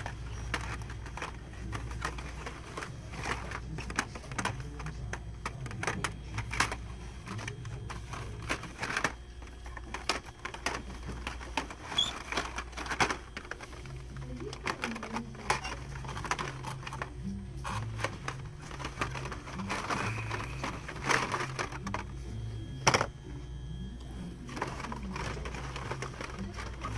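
Hot Wheels cars in plastic-and-card blister packs being flipped through on a peg hook: repeated irregular clicks and clacks of the packs knocking together and against the hook, over a steady low hum.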